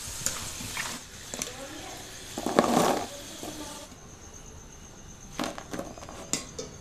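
Crisp, double-fried potato French fries rattling and clicking in a wire-mesh strainer and dropping onto a plate, with hot oil sizzling in the kadai for the first four seconds or so. The dry, crunchy rattle is a sign of how crisp the fries have become.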